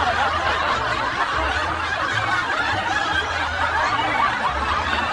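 Several people laughing and chuckling together, many overlapping voices, over a low uneven pulse.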